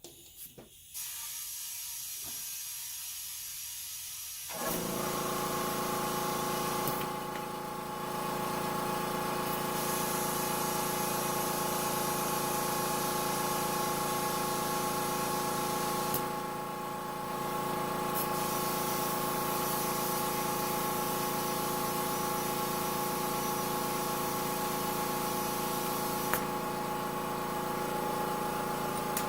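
Compressed air hissing from an air hose as a freshly plugged tire is reinflated. About four seconds in, an air compressor's motor starts and runs steadily under the hiss, which briefly drops twice.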